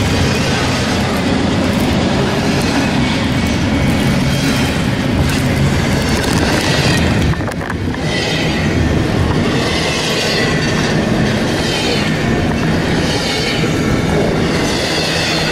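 Intermodal freight train of double-stack well cars rolling past close by: a loud, steady rumble of wheels on rail. The noise dips briefly about seven seconds in, and later there is a faint higher pattern repeating about once a second.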